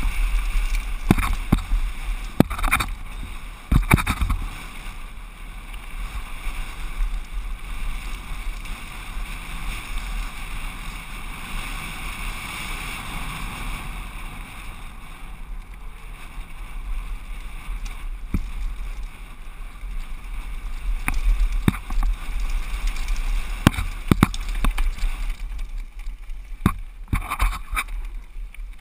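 Mountain bike descending a rough gravel downhill trail: steady wind rush on the action camera's microphone and tyre rumble, with sharp rattles and knocks as the bike hits bumps, several in the first few seconds and again near the end.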